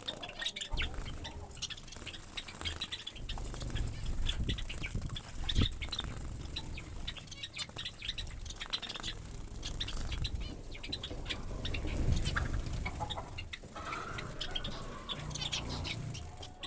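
Small finches and Java sparrows bathing: wings fluttering and splashing in the water, with many short high chirps throughout.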